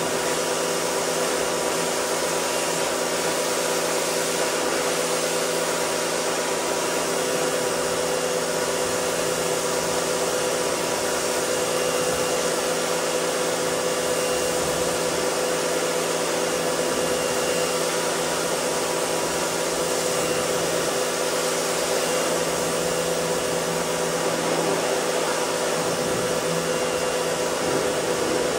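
Pressure washer running steadily, its wand spraying water at the wheel of a pickup truck: an even hiss of spray over a constant machine hum.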